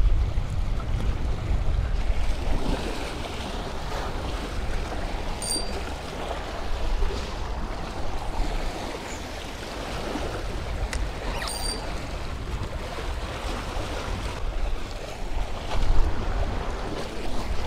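Small waves washing against jetty rocks, with wind rumbling on the microphone. Two short, high clicks sound about six seconds apart.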